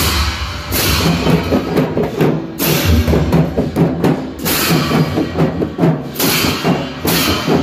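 A Newar dhime drum band playing: many large two-headed drums beaten together in a driving rhythm, with big brass bhusya cymbals crashing roughly once a second.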